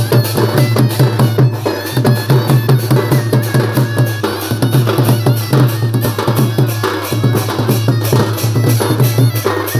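Village band of drums playing a fast, steady folk rhythm: large barrel drums and broad flat drums beaten hard, with a quick run of sharp strikes over a pulsing low drum beat. A reed pipe plays steady high notes over the drumming.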